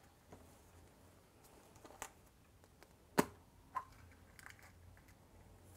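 Hard plastic surprise egg handled and pulled open: a few faint taps, then a sharp click a little over three seconds in as the two halves come apart, and a smaller click just after.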